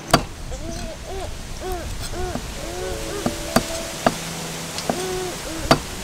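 A cleaver chopping small fish on a thick wooden chopping block: a handful of sharp, separate strikes, the loudest just after the start. Behind them a bird hoots in a steady run of short, low calls, about two a second.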